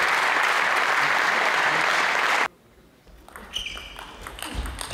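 Audience applause in a sports hall that cuts off abruptly about two and a half seconds in. It gives way to the quieter sounds of a table tennis rally: sharp ball knocks and short squeaks of players' shoes on the court floor.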